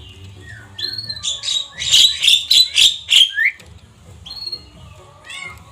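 Javan myna (jalak kebo) calling: a rapid run of harsh, chattering notes starting about a second in and lasting about two seconds, then a few short single calls near the end.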